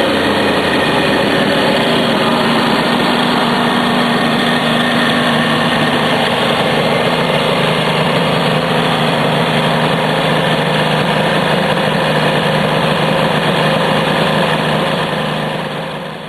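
Kawasaki H2 750 two-stroke triple engine idling steadily, fading out near the end.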